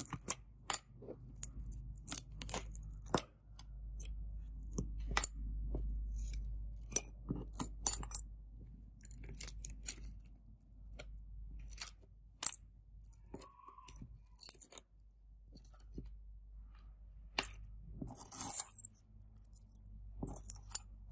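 Broken glass back panel of an iPhone 12 Pro Max being pried off with a thin metal blade, the shards clicking and clinking against the tool, the phone and the wooden table in a string of irregular sharp taps.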